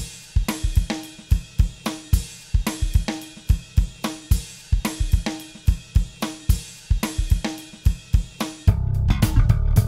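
Intro music: a steady drum-kit beat with kick drum, snare and cymbals, joined by bass and guitar near the end as the music gets fuller.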